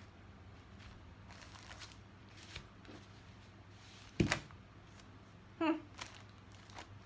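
Rustling and handling of clear plastic project bags, with a single sharp knock about four seconds in and a brief vocal murmur shortly after.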